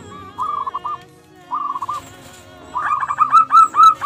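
Zebra doves (perkutut) cooing: two short trilled coos, then from about three seconds in a fast run of loud repeated coo notes.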